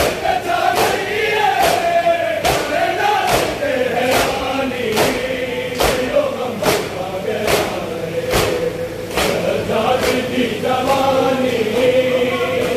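Crowd of men chanting a noha (Shia lament) in unison while beating their chests together in matam, a sharp collective slap landing in steady rhythm slightly faster than once a second.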